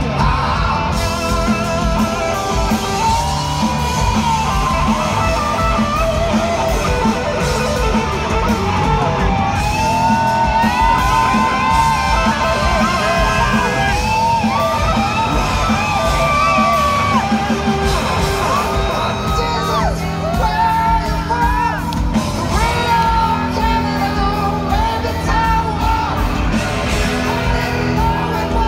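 A live rock band plays at full volume, heard from the audience in a large hall. A lead electric guitar plays a solo of bending, sliding notes over the bass and drums.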